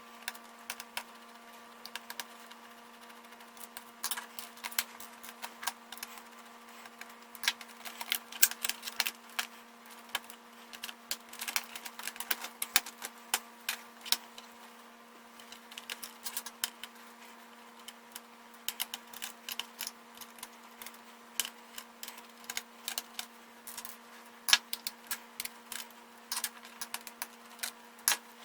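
Irregular small clicks and taps of a laptop being taken apart by hand: screws, a screwdriver and plastic parts being handled, coming in clusters over a steady hum.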